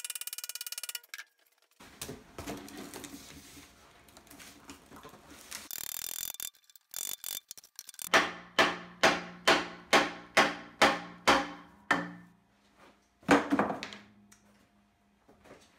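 Claw hammer striking a cured homemade high-temperature cement forge body, at first in a fast sped-up patter, then a steady run of about a dozen sharp blows at roughly two and a half a second, each ringing briefly, with one last blow about a second later.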